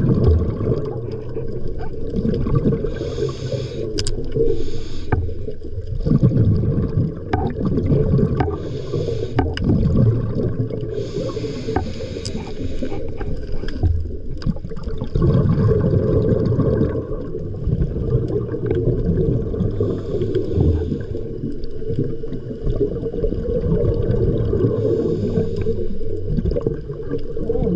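Underwater sound of a scuba diver's breathing: hissy bubble bursts every few seconds over a steady low rumble of water, with a few sharp clicks.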